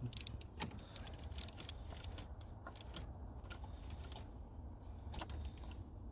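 Scattered light metallic clicks and clinks from hand tools and parts being handled while a hose is worked back into place, over a steady low hum.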